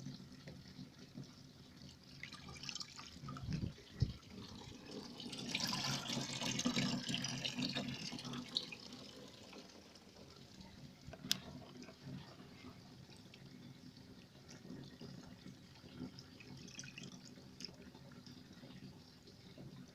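Water splashing and trickling, loudest for about three seconds from roughly six seconds in, with a low thump shortly before and a single sharp click a few seconds after.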